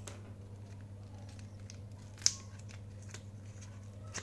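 Battery packaging being picked open by hand: scattered faint crinkles and ticks with one sharp snap about two seconds in, over a steady low hum.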